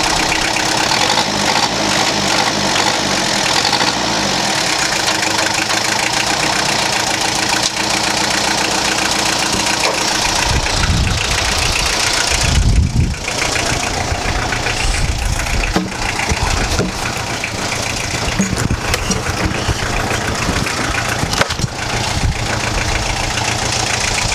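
Loader tractor's engine running steadily, with a heavier, deeper rumble for a few seconds about ten seconds in.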